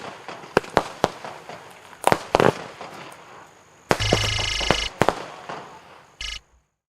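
Fireworks battery (cake) firing: a run of sharp bangs, then a dense, sustained burst lasting about a second near the middle, a last short burst, and the sound cuts off suddenly.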